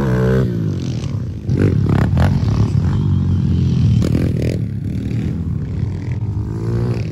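Several pit bikes and small dirt bikes running on the track, their engine pitch rising and falling as riders open and close the throttle.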